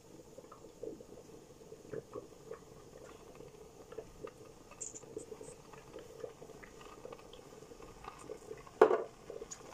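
Black pepper shaken from a shaker bottle over raw meat and onions in a pan: a faint patter of small taps, with one sharp knock near the end.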